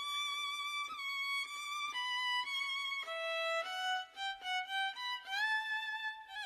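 Background music: a solo violin plays a slow melody of held notes, each about half a second to a second long. The notes step downward, then rise with a slide about five seconds in.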